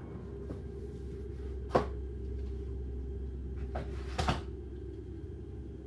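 A few short clicks and knocks, the two loudest about two and four seconds in, over a steady low hum.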